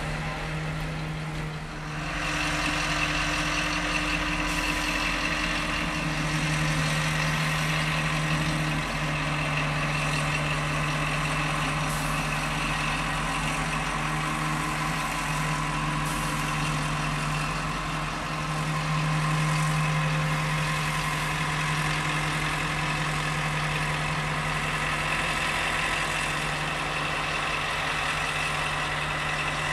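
CFR Marfă LDH diesel-hydraulic shunting locomotive running steadily as it moves slowly past at close range, its engine a low, even drone. About two seconds in, a steady higher-pitched whine joins the engine note and stays.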